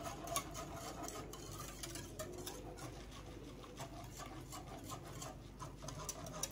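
Wire whisk stirring semolina in milk in a stainless steel pot as it starts to thicken: faint, irregular clicks and scrapes of the wires against the pot.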